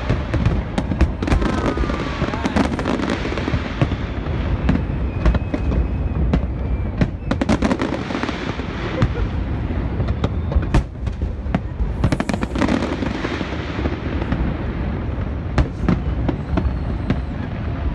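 Aerial fireworks shells bursting: a run of sharp bangs and crackles over a steady low rumble, busiest at the start and again about seven and twelve seconds in.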